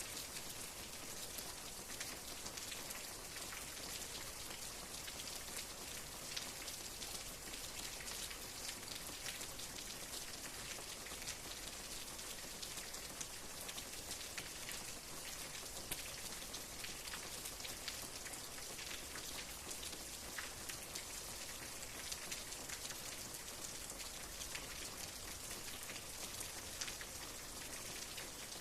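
Steady rain falling, with many small individual drop ticks scattered through a soft even hiss.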